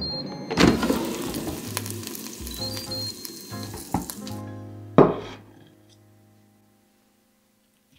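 Air fryer basket pulled open with a clunk, then bacon-wrapped shrimp sizzling in the hot basket, hissing steadily until it cuts off about four seconds in. Background music plays under it and ends on a final hit that fades out.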